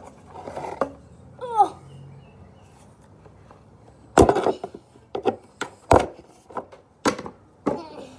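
Handling noise from a hand puppet and toys bumping and rubbing against the recording phone: a run of sharp knocks and rustles in the second half, after a short squeal that glides down in pitch about a second and a half in.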